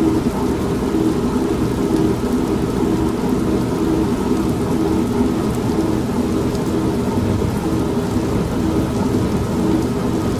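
Old manual washing machine running with a steady pulsing hum, mixed with continuous rain and a low rumble of thunder. The level stays steady throughout, with no sudden thunderclap.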